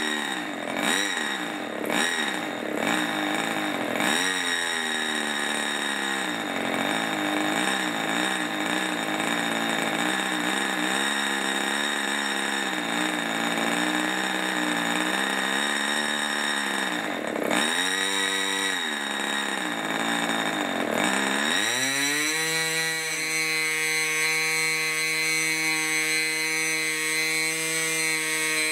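HP 20 two-stroke glow engine turning a 9x5 propeller, running at low speed with its revs wavering up and down and dipping several times; about 21 seconds in it is opened up and the revs climb quickly to a steady, higher note. The uneven low-speed running fits the owner's view that it doesn't like idling, sucking in air through its open front crankshaft bearing.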